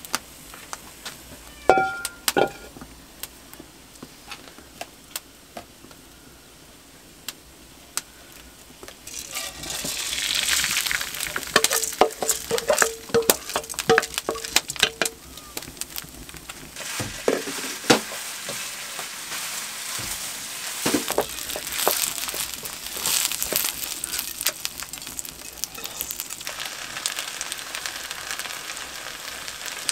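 Rice grains sizzling as they fry in a pan over a wood fire, stirred and scraped with a wooden spoon: the rice is being toasted for pilaf before the water goes in. The sizzling and spoon clicks start about nine seconds in, after a quieter stretch with a few scattered clicks.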